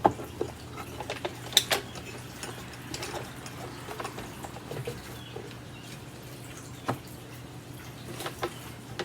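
Parts of a vintage Hoover Convertible upright vacuum cleaner being handled: scattered clicks, knocks and light rattles, over a steady low hum.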